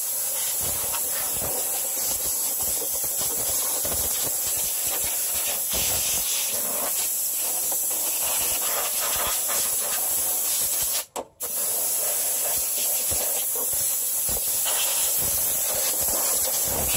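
Compressed-air blow gun on a rubber air hose hissing steadily as it blows out the underside of a lawnmower deck. The air cuts off once, briefly, about eleven seconds in, then resumes.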